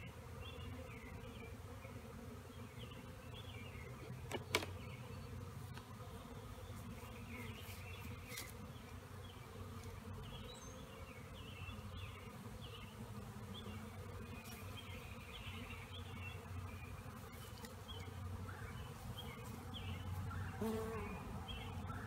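A swarm of honeybees buzzing steadily around a hive, stirred up by the formic acid mite-treatment strips just put inside. A single sharp knock sounds about four and a half seconds in.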